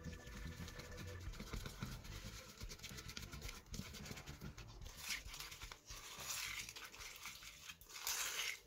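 Plastic spoon stirring glitter into slime glue in a plastic bowl, with faint, irregular scraping and stirring noises.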